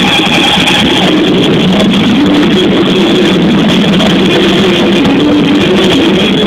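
Live rock band playing loud: electric guitar riffs over drums in a dense, constant wall of sound, recorded from the audience.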